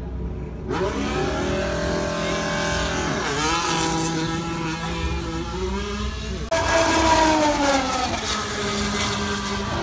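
Race car engines at high revs: one car's engine note holds, drops briefly at a gear change and climbs again. About two-thirds of the way through, a louder car takes over, its engine note falling as it goes by.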